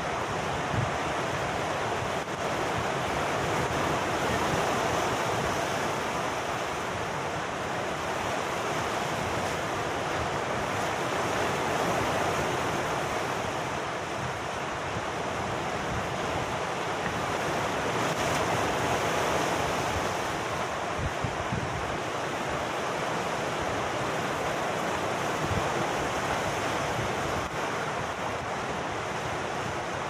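Sea surf washing and breaking among coastal rocks, a continuous rushing wash that swells and ebbs about every seven seconds.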